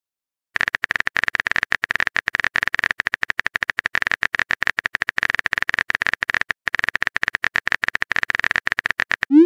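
Typing sound effect: a fast, irregular run of phone-keyboard tap clicks that starts about half a second in and goes on for nearly nine seconds, ending in a short rising blip near the end.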